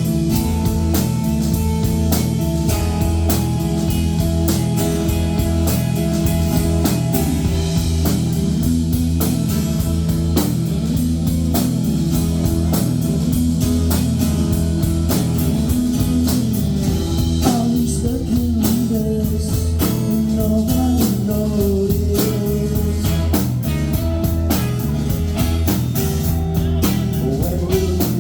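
Rock band playing an instrumental passage: electric guitar lines over steady bass and drums with a busy cymbal beat.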